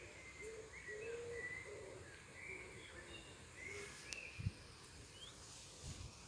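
Faint cooing of a pigeon: a run of short, low, repeated coos that stops a little over halfway through, with thin high chirps of small birds above it. A couple of soft low thumps come near the end.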